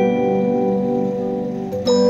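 Criterion disc music box playing a tune from its perforated metal disc, its steel comb teeth plucked to give bell-like ringing notes. The notes ring on and slowly fade, then a fresh chord of several notes is struck near the end.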